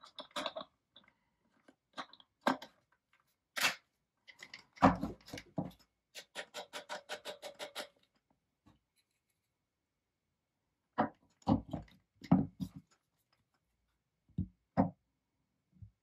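Handling noises from a small plastic electric coffee grinder as its parts are twisted, taken apart and set down: scattered clicks and knocks, one heavier knock about five seconds in, and a quick, even run of about a dozen clicks lasting under two seconds. A few more knocks come near the end. The grinder's motor is not running.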